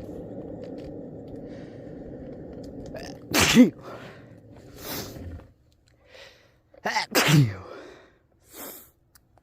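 A woman sneezing in a fit: one loud sneeze about a third of the way in, then two sneezes in quick succession about two-thirds through, with short sharp breaths between. Under the first half, a steady low rumble of skateboard wheels rolling on pavement stops about halfway.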